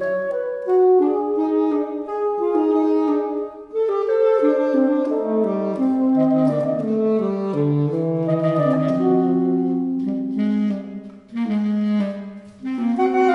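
Alto, tenor and baritone saxophones playing together in a classical chamber trio, several sustained lines moving against each other, with brief breaks about a quarter of the way in and twice near the end.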